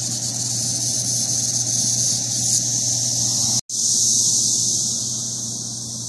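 Chorus of Brood X periodical cicadas: a loud, steady, high-pitched droning hiss. It drops out for an instant about three and a half seconds in.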